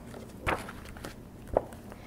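Two soft thumps about a second apart from a spiral-bound picture book being handled as its page is turned.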